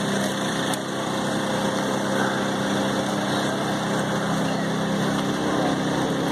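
A small engine idling steadily at one unchanging pitch.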